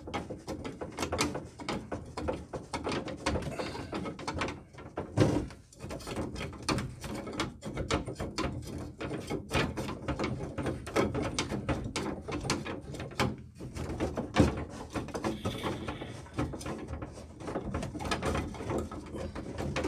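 Irregular clicks, knocks and rattles of hand tools and plumbing parts being handled, with a louder knock about five seconds in and another about fourteen seconds in.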